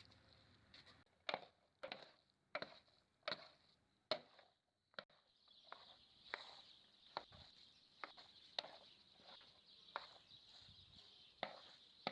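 Knife chopping on a cutting board: a steady run of sharp strokes, about one every three-quarters of a second.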